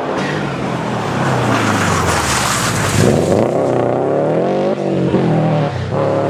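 Rally car passing close at speed with a rush of tyre and engine noise, then its engine revving hard as it accelerates away into the bend. The engine note climbs and breaks off briefly twice, like quick gear changes.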